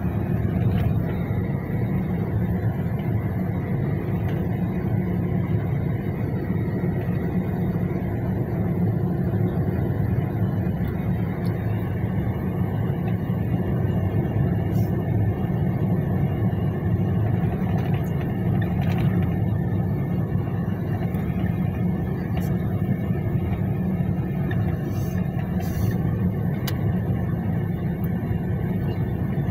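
Steady rumble of a car's tyres and engine heard from inside the cabin while it drives along a country road.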